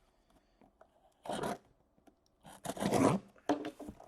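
Cardboard master case being cut and torn open, with scraping and tearing of packing tape and cardboard in two bursts. The second burst, about three seconds in, is longer and louder.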